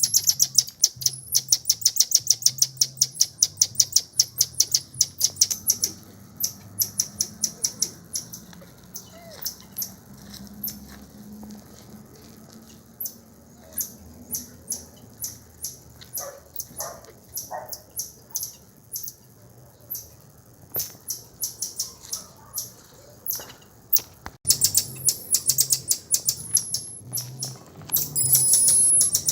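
Birds chirping: sharp high-pitched chirps in a quick series of about four a second, thinning out and going quieter midway, then coming back dense and loud near the end.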